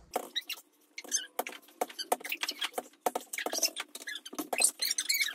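Fast, high-pitched squeaky chatter and patter: children's voices and play sounds sped up in fast motion, so that nothing deep is left in them.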